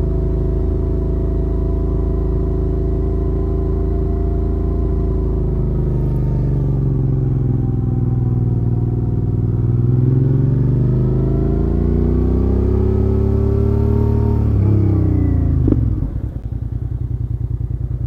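1999 Suzuki SV650S 645 cc V-twin running through an Akrapovic full exhaust while riding. The engine note holds steady, dips, then climbs for several seconds under throttle; near the end the revs drop sharply into a low, pulsing burble.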